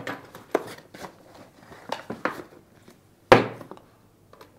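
A suction cup camera bracket and its cardboard box being handled on a tabletop: a few light knocks and clatters, then one sharp knock a little over three seconds in.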